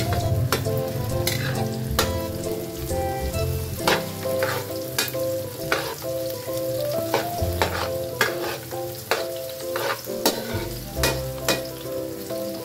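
Garlic and onion sizzling as they sauté in a wok, stirred with a metal spatula that scrapes and clinks sharply against the pan again and again.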